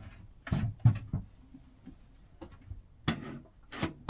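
A few short, irregular knocks and clicks: a cluster about half a second to a second in, then more near the end.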